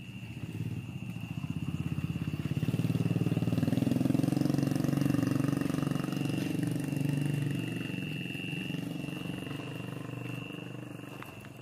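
A motorcycle engine goes by, growing louder over the first few seconds and fading away toward the end.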